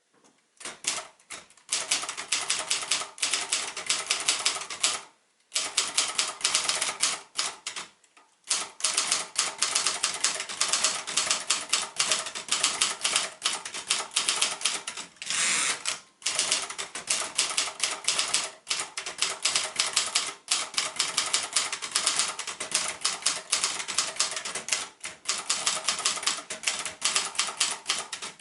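Royal Mercury manual portable typewriter being typed on: rapid, uneven clacking of keystrokes with a couple of brief pauses, and a longer rasping sound about halfway through.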